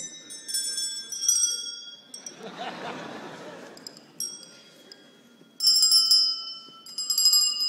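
Bell-like ringing at several different pitches, struck in quick clusters, loudest and densest in the last two seconds. About two seconds in there is a short swell of audience noise between the ringing.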